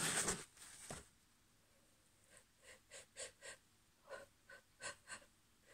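A person's faint breathing between allergy sneezes: a breath at the start, then about eight short, catching breaths a few tenths of a second apart, the hitching breaths of a sneeze coming on.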